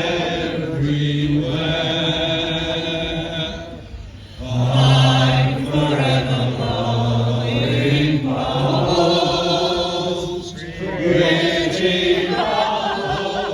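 Several voices singing together in long held notes, phrase after phrase, with short breaks for breath about four and ten seconds in.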